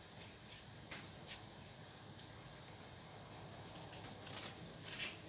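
Spoon scraping seeds out of a halved ripe papaya: faint, soft scrapes, a couple about a second in and a cluster near the end, over a faint steady background hiss.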